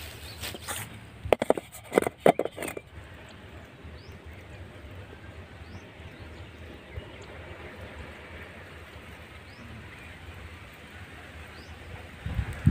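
Metal kadai pan set down on a rock with a few sharp clanks about a second or two in. After that comes steady open-air ambience with faint, short bird chirps every couple of seconds, and a couple of knocks near the end.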